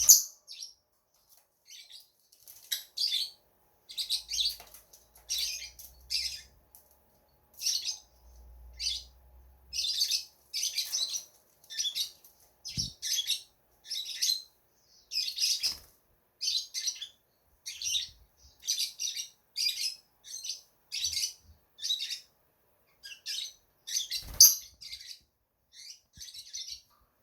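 Lovebirds chirping: a steady series of short, sharp, high-pitched calls, about one or two a second, with a faint knock or two.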